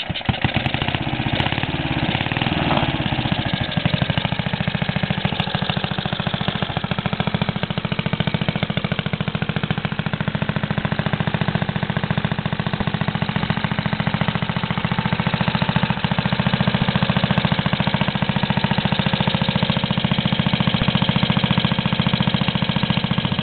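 1941 Briggs & Stratton model WMB single-cylinder engine running. Over the first few seconds its firing speeds up from slow, separate beats to a fast, even beat, which it then holds steadily.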